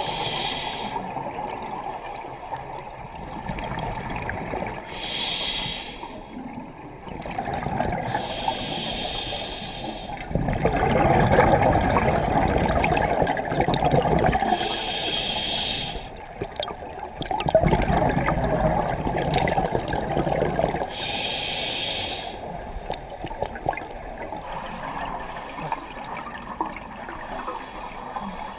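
A scuba diver breathing through a regulator underwater: five short hissing inhales through the demand valve a few seconds apart, and two long bubbling exhales in the middle, the loudest sounds.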